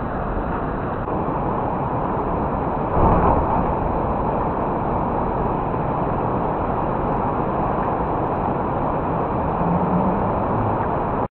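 Steady rushing noise of a thunderstorm, with a louder rumbling surge about three seconds in; the sound cuts off suddenly at the end.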